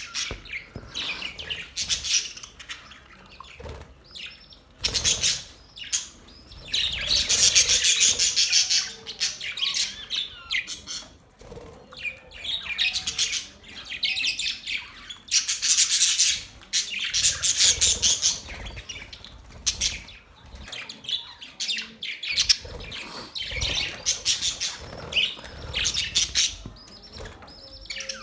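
Budgerigars chirping and warbling in rapid, chattering bursts of a second or two, with short lulls between.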